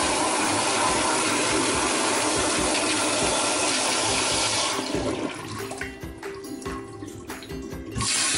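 Sloan flushometer toilet flushing: a steady rush of water into the bowl that cuts off about five seconds in, then a fresh flush starts near the end. The flush is still too forceful, a sign that the supply pressure is set too high.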